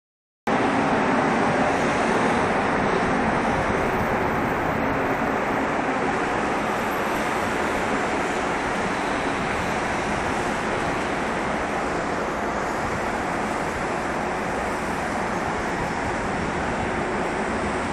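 A steady, loud, droning rumble of even noise with a faint low hum running through it, presented as the mysterious 'strange sound in the sky'.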